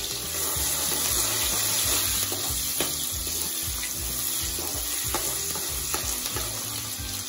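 Thinly sliced onions sizzling in hot mustard oil in a kadai, stirred with a spatula, with a few faint clicks from the spatula against the pan.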